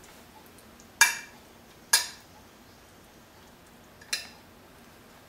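A metal spoon clinking three times against a ceramic plate while scooping food, each clink ringing briefly.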